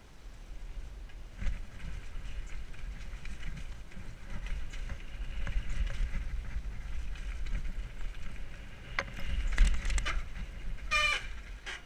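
Mountain bike descending a dirt forest trail: tyres rolling over dirt and leaves, and the bike rattling over bumps, under a steady low wind rumble on the helmet camera's microphone. A few sharp clacks come about nine seconds in, and a brief high squeal near the end.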